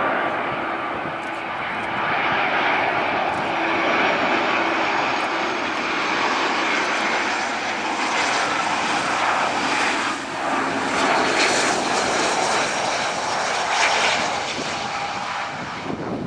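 Airbus A320 airliner on final approach, passing close by with its twin turbofan engines at approach power: a loud, steady rushing jet noise with a faint whine over it.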